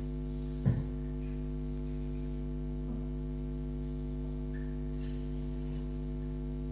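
Steady electrical mains hum, with one short low thump a little under a second in.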